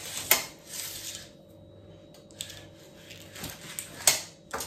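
Metal springform cake tin being unclipped and loosened: a few sharp metallic clicks and scraping clinks from the latch and the ring, the loudest just after four seconds.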